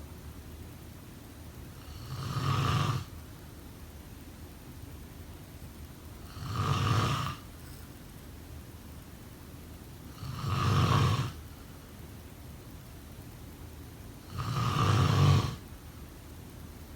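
A sleeper snoring in a slow, regular rhythm: four snores about four seconds apart, each lasting about a second, each a little louder than the last.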